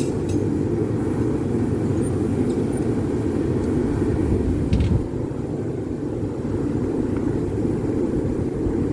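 Steady low roar of a pressurised gas forge burner running.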